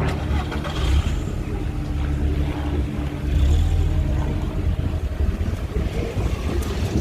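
An engine running with a low, steady drone, with wind buffeting the microphone.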